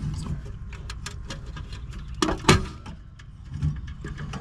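Light clicks and taps of hands handling the gas valve and burner assembly inside a packaged gas furnace unit, with a louder knock a little past two seconds in, over a steady low rumble.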